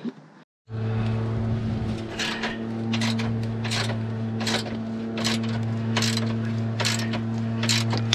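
Ratchet wrench with a 16 mm socket clicking in repeated back-strokes, about two a second, as it undoes the bolts of a car's underbody brace bar. Under it a steady engine hum, a neighbour's lawnmower, runs throughout and stops abruptly near the end.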